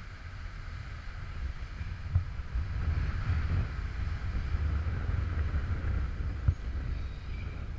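Wind noise on the microphone, a steady low rumble, with two sharp knocks, about two seconds in and near the end.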